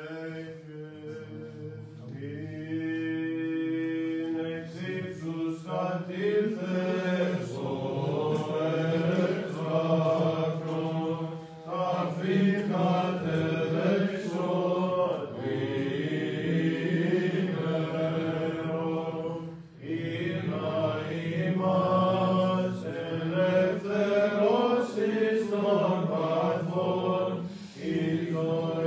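Byzantine chant: voices singing a slow, winding melody over a steady held low drone (the ison), pausing briefly twice.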